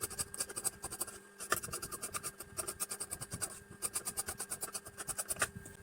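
Tailor's scissors cutting blouse fabric in quick, even snips, about ten a second, with a few brief pauses.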